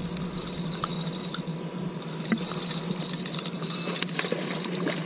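Scattered light clicks and rattles from a fishing rod and reel being handled, over a steady low hum and a steady high-pitched drone.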